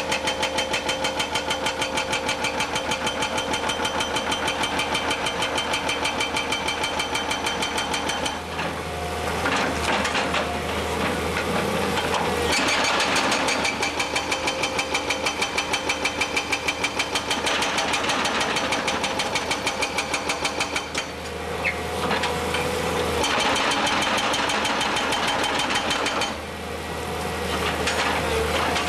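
Feeleng FINE 20 TOP hydraulic breaker on an excavator hammering rock: a fast, even run of blows, several a second. It stops twice for a few seconds while the excavator's engine runs on, then starts hammering again near the end.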